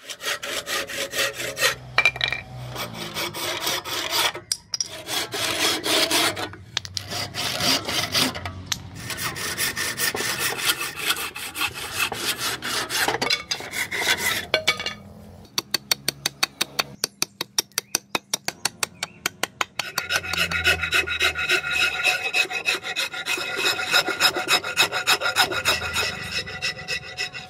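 Hand saw cutting rosewood with long back-and-forth strokes, then a run of quick, even short strokes. After that comes a rasp filing the rosewood axe handle for the last several seconds.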